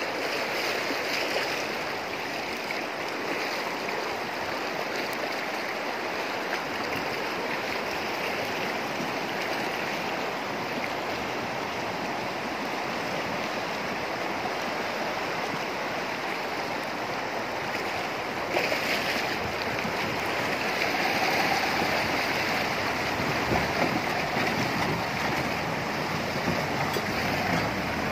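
Shallow, fast river rushing steadily over a gravel bed. In the last third it grows a little louder and brighter as a pickup truck fords the river towards the listener, its wheels splashing through the water.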